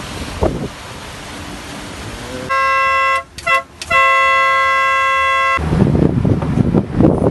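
A horn sounds twice at one steady pitch: a short blast about two and a half seconds in, then a longer blast of about a second and a half.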